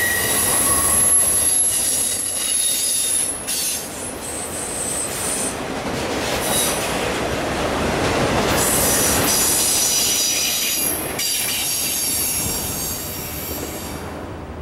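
Autorack freight cars rolling past, their steel wheels squealing on the rails in high steady tones that break off and return over the rumble of the cars. The sound thins out near the end as the last car goes by.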